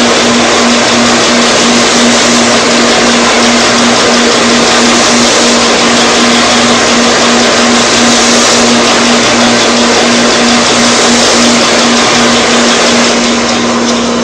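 Shopsmith belt sander running with a dust collector hooked up: a steady motor hum under a loud, even hiss while a plywood workpiece is held to the moving abrasive belt for sanding. The noise begins to fall off near the end as the machine is shut down.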